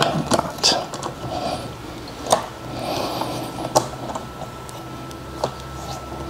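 Hand-thread-tapping tools clicking: a few sharp metal clicks, irregularly spaced, as a tap and T-handle tap wrench are handled and turned in a blind hole in a cast metal part.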